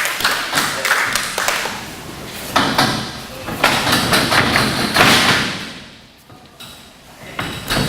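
Repeated thuds and slaps of wrestlers' bodies hitting the ring canvas, quieter for a moment near the end.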